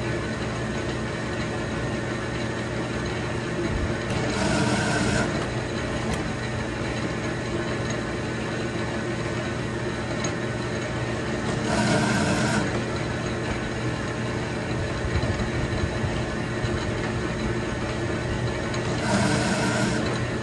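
Metal lathe running steadily while single-point threading a shaft. Three times, about seven and a half seconds apart, a hiss about a second long rises over the hum as the threading tool takes a cutting pass.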